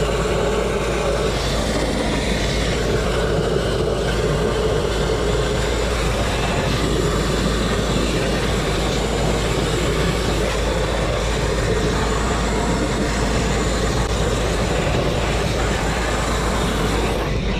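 Abrasive grit-blasting nozzle blasting a steel truck frame at close range: a loud, steady hiss of compressed air and grit stripping rust and paint back to bare metal.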